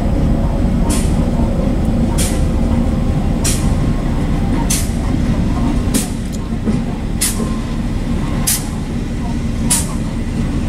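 Kansas City Southern diesel freight locomotives passing close by: a loud, steady rumble of engines and steel wheels on rail, with a sharp high click repeating about every second and a quarter.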